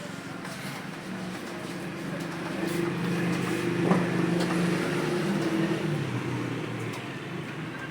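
Computer keyboard typing with faint scattered keystroke clicks, under a low droning hum that swells over a few seconds, peaks midway and fades away.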